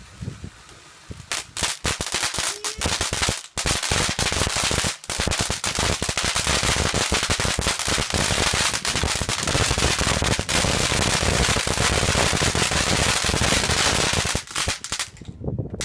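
Fireworks going off in a dense run of rapid cracks and bangs. The run starts about a second in and stops shortly before the end.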